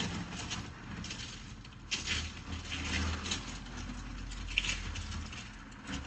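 Faint rustling and scuffing as a plastic-wrapped package is handled and picked up off the floor, a few short scrapes, over a low rumble.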